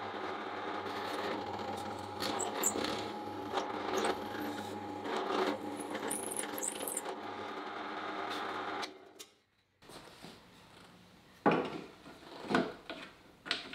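Ledacraft benchtop drill press running steadily while its bit bores into a wooden workpiece. The sound stops abruptly about nine seconds in, followed near the end by a few sharp knocks.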